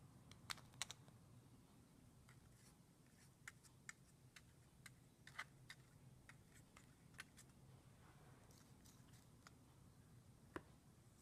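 Near silence: faint room hum with scattered small clicks and taps, a dozen or so at irregular intervals.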